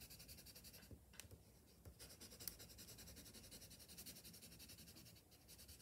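Coloured pencil shading on paper: a faint, steady scratching made of many quick strokes.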